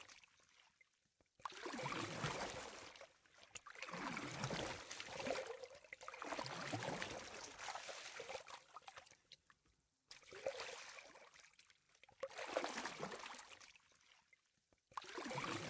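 Water sloshing and lapping in separate bursts a second or two long, with near-silent gaps between them.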